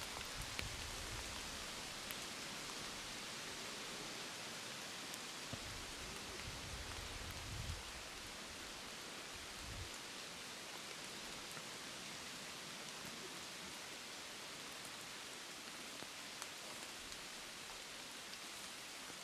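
Steady hiss of rain falling, with faint scattered drip ticks. A few low rumbles come in the first half.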